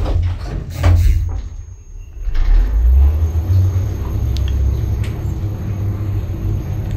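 KONE passenger lift setting off upward. A few clunks in the first second, then a steady low rumble of the car travelling, with a faint high whine from the drive.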